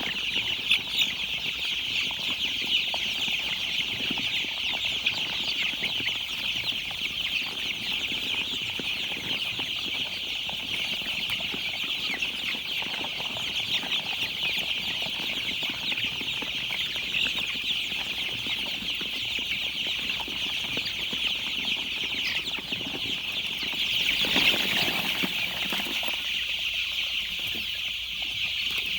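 Many young chicks peeping together in a dense, steady chorus of high, short chirps. About 24 seconds in, a louder rustling noise is heard for a couple of seconds.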